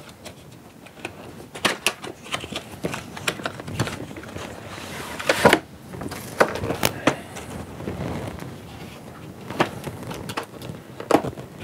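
A cardboard box being opened by hand: scattered scrapes, rubs and small knocks of cardboard, with one louder scrape about five and a half seconds in.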